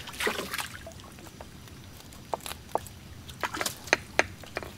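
Water dripping and splashing from a wet gillnet as it is handled: about seven sharp, separate drips and small splashes in the second half.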